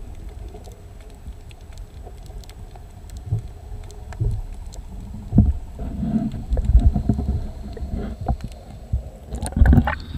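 Muffled underwater rumble with irregular knocks from water moving against an action camera's housing held below the surface. About nine seconds in, the camera breaks the surface and brighter splashing water noise comes in.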